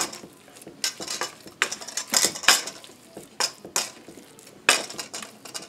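Ground turkey meatloaf mixture being mixed by hand in a stainless steel bowl, with about nine irregular sharp clatters and squelches as the hands work it and the metal bowl knocks about.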